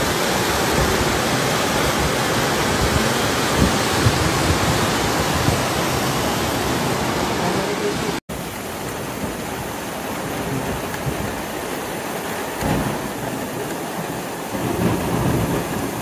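Flash floodwater rushing down a town street, a steady, dense noise of churning water. About eight seconds in it breaks off for an instant and goes on quieter.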